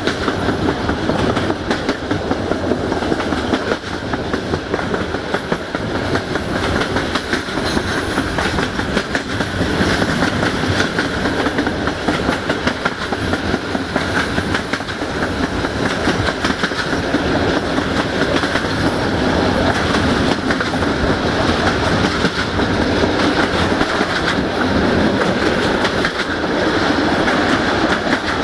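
Wheels of a CFR passenger carriage running on the rails at speed: a steady rolling noise shot through with fast, dense clicking from the wheels over the track.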